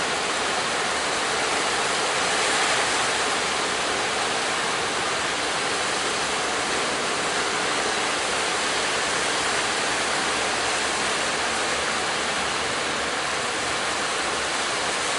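Steady rush of breaking surf and churning water at a river mouth, a continuous noise with no clear breaks.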